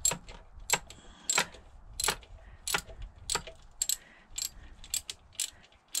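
Small socket ratchet clicking in an even run of strokes, about three clicks every two seconds, as it turns the 7 mm hold-down bolt of an ignition coil on a Ford 4.6 V8.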